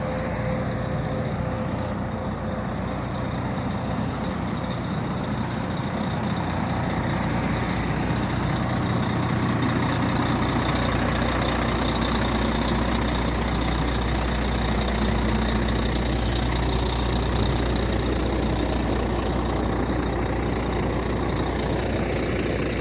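Vehicle engine running steadily with a low rumble that grows a little louder about ten seconds in.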